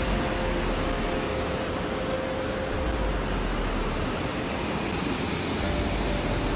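Steady rushing noise of floodwater, with a faint thin tone that fades out about halfway through and returns near the end.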